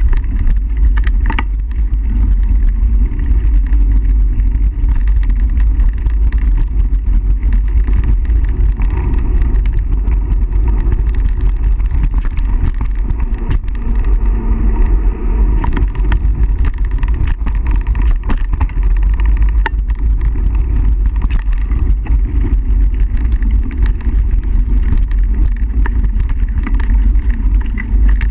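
Mountain bike rolling fast over a dirt singletrack: heavy wind rumble on the bike-mounted camera's microphone and tyre noise on dirt, with frequent small rattles and clicks from the bike over the bumps.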